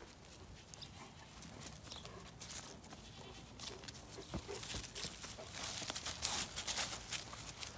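Irregular footsteps crunching over the ground while walking, heaviest near the end.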